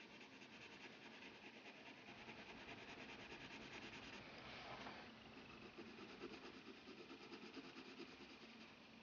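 Faint scratching of a coloured pencil rubbed on paper in quick, short back-and-forth shading strokes.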